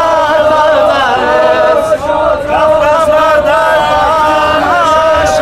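A group of young men singing a patriotic song loudly together in unison inside a bus.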